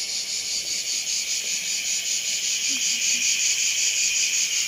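Hot oil sizzling steadily in a pot as lokma, small yeast-dough balls, deep-fry in it.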